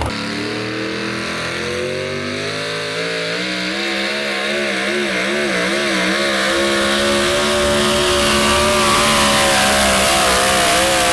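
Modified 4x4 pulling truck's engine at full throttle, hauling a weight-transfer sled. The pitch climbs over the first few seconds, wavers up and down for a couple of seconds in the middle, then holds high and steady.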